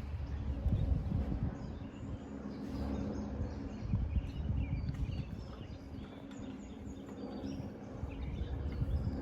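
Outdoor ambience: a low, uneven rumble with faint scattered bird chirps.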